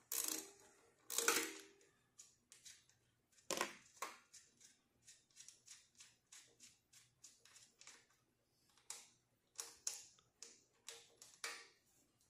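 Metal hand tools clicking and clinking against the fuel tank mounting of a Honda ATC200 Big Red as the tank is being unbolted. A run of short, sharp clicks at uneven spacing, with a few louder knocks.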